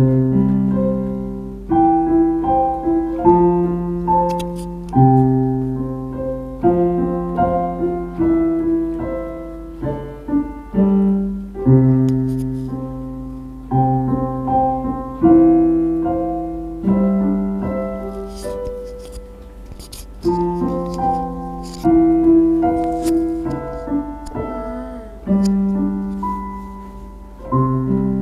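Electronic keyboard played in a piano voice: a slow tune over low bass notes and chords, each note struck and then fading.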